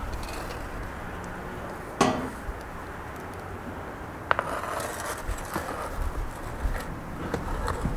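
Metal baking tray and tool knocking and scraping against the brick floor of a wood-fired oven as the tray of buns is slid in: a sharp clatter about two seconds in, a sharp click a couple of seconds later, then a run of small knocks and scraping.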